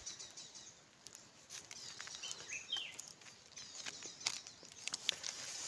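Faint rustling and scattered small clicks of dry sticks and debris being handled on dirt, with a short bird chirp about halfway through.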